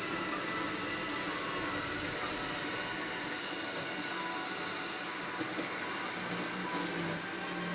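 Xiaomi Mi robot vacuum running steadily as it moves across the floor, its suction fan and brushes giving an even machine noise, with two light ticks near the middle.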